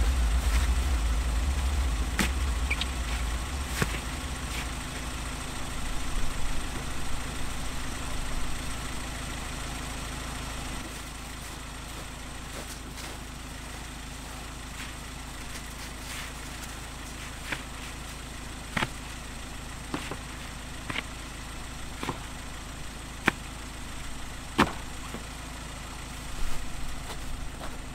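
A 4x4's engine idling steadily, with scattered sharp clicks and knocks. The low rumble is heavier for the first ten seconds or so, then settles lower.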